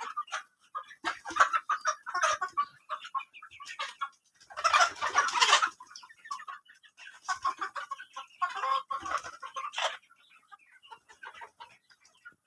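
A flock of local Indian chickens clucking, many short calls overlapping at irregular intervals. About four and a half seconds in comes a louder, noisier burst lasting just over a second, and the calls thin out near the end.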